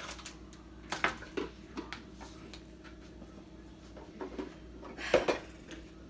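Hands handling and opening a plastic Poopsie Sparkly Critters toy container: scattered small clicks and taps of plastic, with a sharper knock about a second in and a louder clatter about five seconds in.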